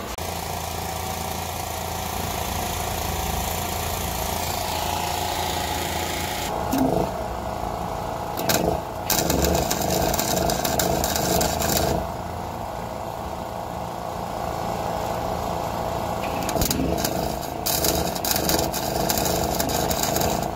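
Angle grinder with a cutting disc running and cutting through rusty sheet steel on a VW T25 van's body. There is a steady motor whine throughout, and the cutting gets harsher and louder in two spells, from about six to twelve seconds in and again near the end.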